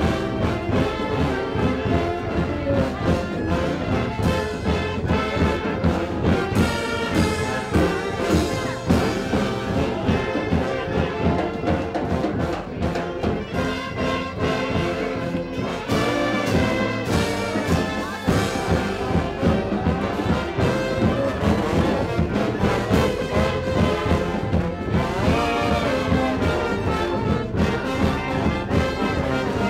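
Brass band music: trombones and trumpets playing an upbeat tune over a steady beat.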